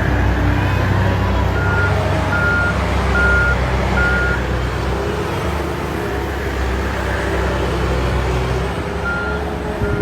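Heavy diesel construction machinery running steadily, with a reversing alarm beeping: four evenly spaced beeps about two seconds in, and the beeping starts again near the end.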